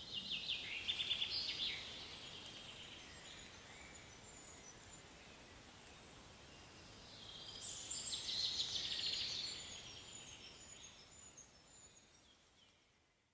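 Songbirds singing: two bursts of rapid, high trills and chirps, the second starting about seven seconds in, with fainter chirping between them. The sound fades away near the end.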